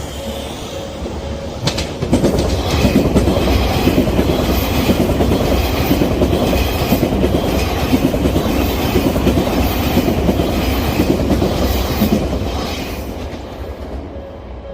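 Odakyu Line electric train passing through a level crossing. Its wheels clatter over the rail joints, loud from about two seconds in and fading near the end. The crossing's warning bell dings steadily at the start before the train drowns it out.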